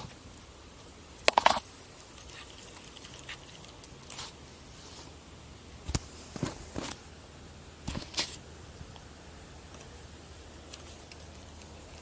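Scattered clicks, taps and rustles of a spinning rod and reel being handled. The loudest are a quick cluster of sharp clicks about a second and a half in and a pair near eight seconds.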